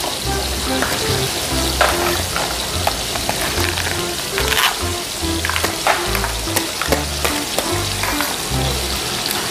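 Steady frying sizzle, as of food in a hot pan, over background music with a repeating bass line. Light clicks and taps come from plastic toy fruit pieces being set into a small metal toy wok.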